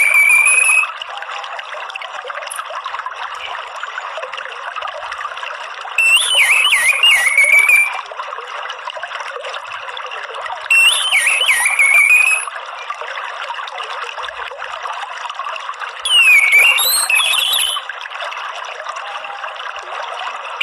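Orange-headed thrush chattering 'ngeriwik' call, used as a lure to set captive thrushes singing. A short wavering phrase of about two seconds is repeated about every five seconds, louder than a steady bed of running water.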